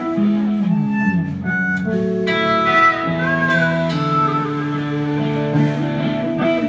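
Live rock band playing an instrumental passage: electric guitars holding and bending notes over bass and drums.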